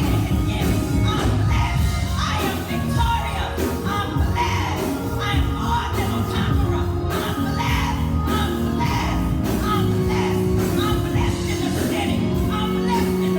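Gospel music from a church band, played with a steady beat, with voices singing along.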